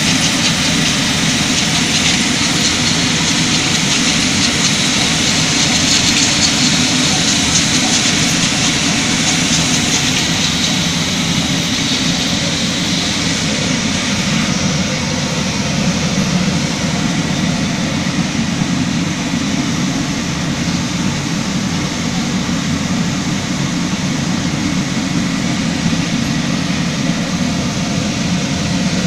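Band-knife foam splitting machine with a vacuum conveyor belt, running: a steady, loud low hum under a hiss, the hiss easing a little about ten seconds in.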